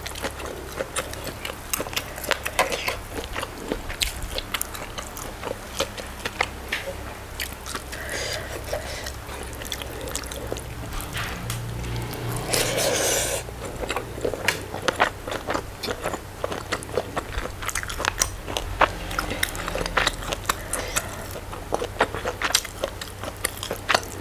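Close-miked chewing and biting of goat satay and rice eaten by hand, with many small wet mouth clicks and smacks. A short breathy burst comes a little past halfway.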